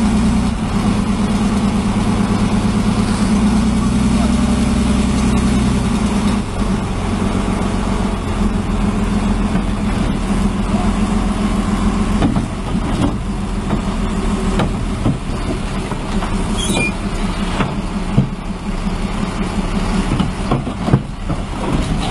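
Heavy diesel machinery engine running steadily. Scattered knocks and clanks come in over the second half.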